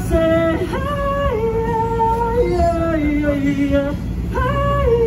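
A woman singing a slow melody in long held notes that slide from one pitch to the next, over a steady low rumble.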